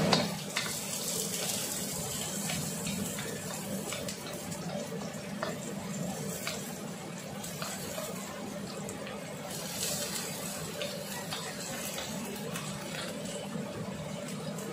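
Sliced onion sizzling in hot oil in a wok, stirred with a wooden spoon that scrapes and taps against the pan. About ten seconds in, vegetables are tipped in and the sizzle briefly swells.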